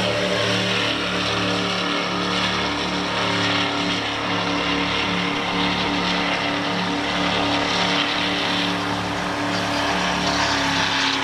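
Motorboat engines running, several engine tones overlapping and shifting slightly in pitch, over a steady hiss of water wash and wind.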